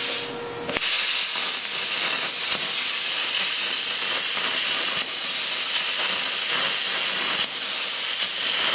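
Longevity FORCECUT 42i plasma cutter's PT60 torch cutting 1/8-inch hot-rolled steel at 40 amps: a quieter air hiss, then the arc starts with a sharp snap about a second in, followed by a loud, steady hiss of the cutting arc and air jet.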